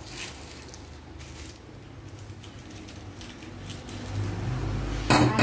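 Computer-chair parts being unpacked: faint rustles and light clicks of the packaging and parts being handled, over a steady low hum, with a sudden loud knock near the end.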